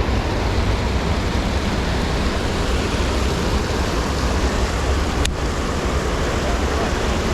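Steady rush of fast-flowing, rain-swollen creek water, with a single sharp click about five seconds in.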